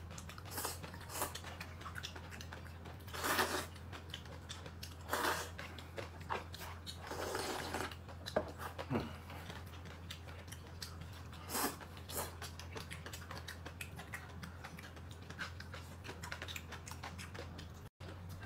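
A person eating: close chewing and small clicks, with a few louder short bursts, over a steady low hum.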